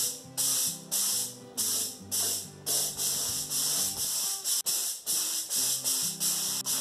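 Gravity-feed compressed-air spray gun spraying paint in short hissing bursts, each about half a second long and coming in quick succession as the trigger is pulled and let go, under background music.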